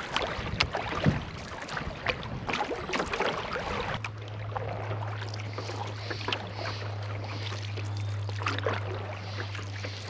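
Wooden canoe paddle strokes, the blade dipping and splashing in river water beside the canoe. About four seconds in the sound changes to gentler water noise over a steady low hum.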